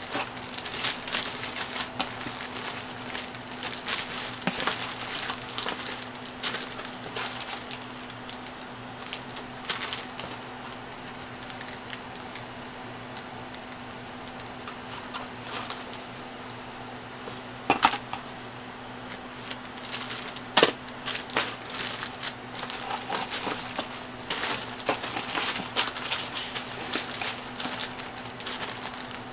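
Clear plastic bags holding plastic model-kit sprues crinkling and rustling as they are handled, with irregular light clicks and taps of the plastic parts. It quietens for a few seconds midway, then a couple of sharper knocks come about two-thirds of the way through.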